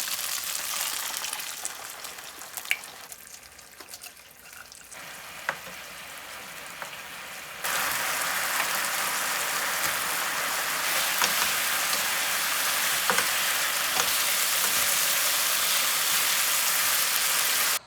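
Food frying in a pan with a steady sizzle, a few faint clicks of a utensil in it; the sizzle grows quieter for a few seconds, then jumps suddenly louder about seven and a half seconds in and holds steady.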